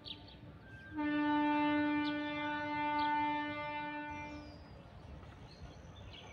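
A long, steady horn-like note sounds from about a second in and fades out after about three and a half seconds, with short bird chirps over it.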